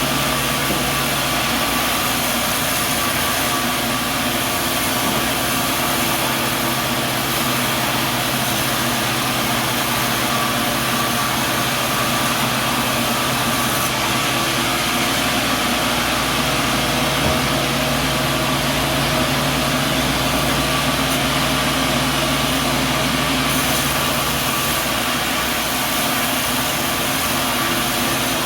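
Sawmill machinery running steadily: a constant engine-like drone with a few steady tones that shift slightly about a second and a half in and again around the middle.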